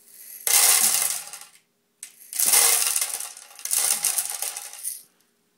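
Dry popcorn kernels poured into a coffee grinder's hopper, rattling and clattering in three pours.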